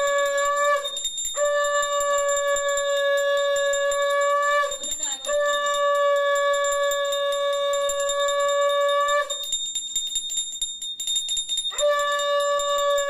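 Conch shell (shankha) blown for puja in long, steady blasts at one pitch. Each blast sags a little as it ends, with short breaks between blasts and a longer pause before the last one.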